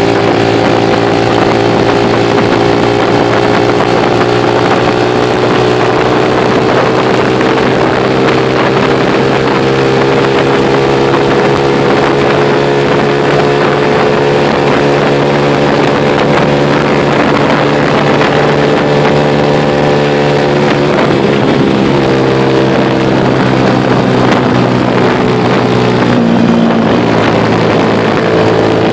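Motorcycle engine running steadily under way, its pitch drifting slowly up and down with the throttle and shifting about two-thirds of the way through, over a constant rush of wind on the microphone.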